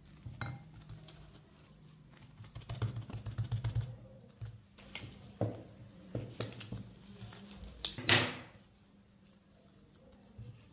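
Soft food-prep handling sounds: a wooden spatula scraping a glass bowl and spreading mashed potato filling on dough, a run of light taps and clicks, then one louder, short scraping burst about eight seconds in.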